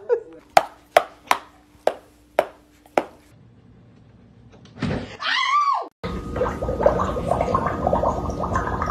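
Plastic trigger spray bottle squirted seven times in about three seconds. About five seconds in comes a brief high squeal that wavers in pitch, then a dog eating from a food bowl, a dense run of small clicks and smacks.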